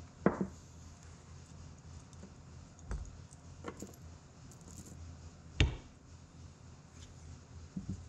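Steel torque-amplifier parts from a Farmall 300 being handled on a workbench: a pinion gear and shaft clinking and knocking as they are slid off the planetary carrier and set down, about five short sharp knocks with the loudest a little past halfway, over a low steady hum.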